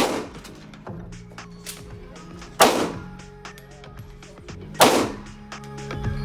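Three single gunshots at a firing range, about two and a half seconds apart, each with a short ringing tail, over background music.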